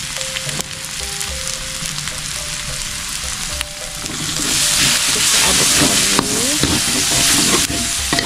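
Spice paste sizzling in hot oil in an aluminium wok, with a metal spatula scraping and stirring it. The sizzle gets louder about halfway through, when the stirring starts.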